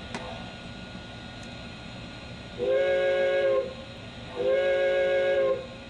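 Model steam locomotive's sound-system steam whistle blowing two long chime blasts, each about a second long with a short gap between them.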